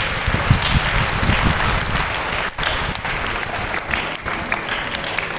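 Audience applauding steadily, many people clapping at once, with a brief dip about two and a half seconds in.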